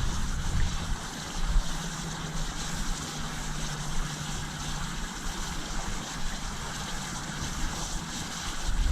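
Wind buffeting the microphone on open water: a steady low rumble and hiss with small gusts.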